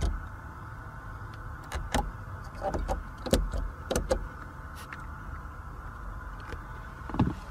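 A series of short clicks and light taps from hands working the rear-cabin fittings and switches of a Mercedes-Benz CLS, most of them in the middle and one more near the end, over a steady low hum.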